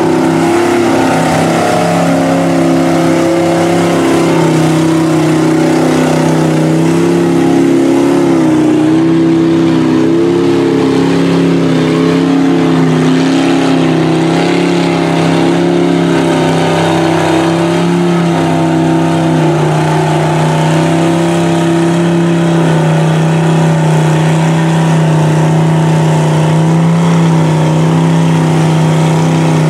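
Engines of lifted mega mud trucks on giant tractor tires running under load through deep mud. The loud, steady drone slowly rises and falls in pitch.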